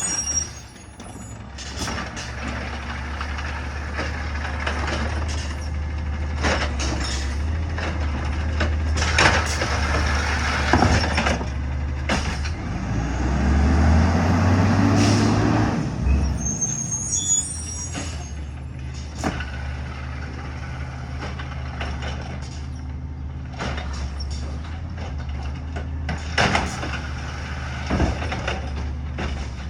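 City garbage truck's diesel engine running steadily, revving up about halfway through, with repeated metal clanks and bangs and brief high squeals near the start and just past halfway.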